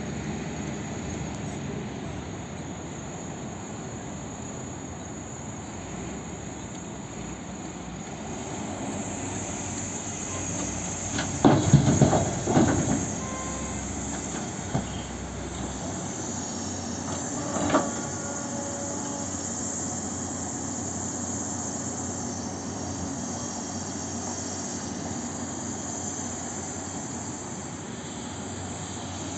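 Cat 324D excavator's diesel engine running steadily with its hydraulics working. Loud crashes about twelve seconds in and a shorter one near eighteen seconds, as bucket loads of earth and rock drop into the steel bed of a dump truck.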